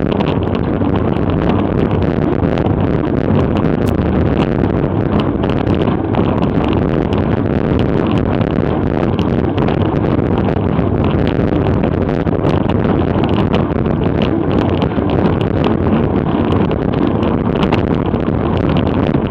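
Steady wind rush buffeting an action camera's microphone on a road bike ridden at race speed, with faint scattered clicks.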